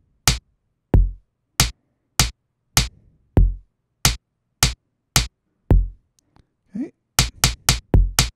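Electronic drum-kit samples in Ableton Live, heard one hit at a time about every half second as notes are drawn into a MIDI drum clip: mostly snare-type hits, with a deeper kick every few hits. From about seven seconds in, the drawn beat plays back as a quicker pattern of about four hits a second.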